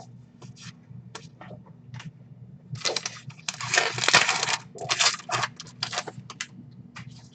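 Crinkling and rustling of trading-card packaging, loudest in a dense stretch about three to four and a half seconds in, with short clicks and slides of cards being handled.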